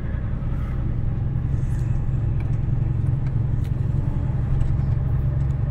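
Steady low drone of a moving vehicle: engine and road noise heard while driving along the road.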